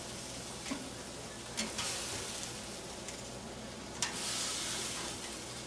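Steaks sizzling on a gas grill, a steady hiss, with a few sharp clicks of metal tongs against the grate as the steaks are lifted off.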